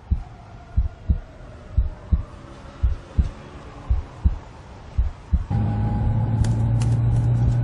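Heartbeat, a double 'lub-dub' thump about once a second, over a faint slowly falling tone. About five and a half seconds in, the beats give way to a loud, steady low hum.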